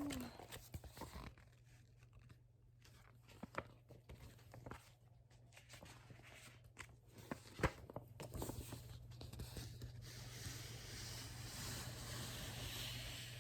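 Faint rustling and light clicks of a picture book being handled and its pages turned, with one sharper click about seven and a half seconds in.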